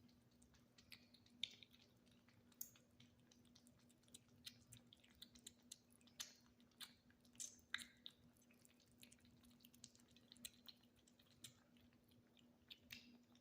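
Kittens chewing tuna: faint, irregular little clicks and smacks of eating.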